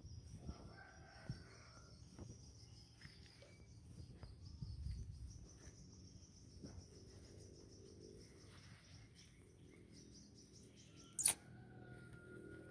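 Faint outdoor ambience: birds chirping over a steady high-pitched trill, with scattered soft knocks and one sharp click about eleven seconds in.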